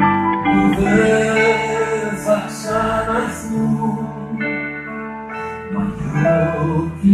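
Live band music with a singer over keyboard and electric guitar, sustained held notes.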